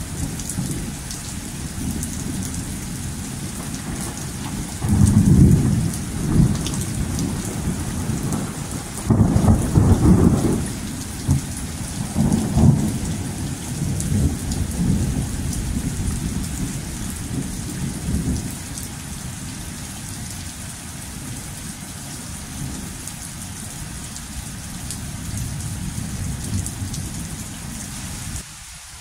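Heavy rain falling steadily with thunder rumbling in several rolling surges, loudest in the first half, then dying away to rain alone.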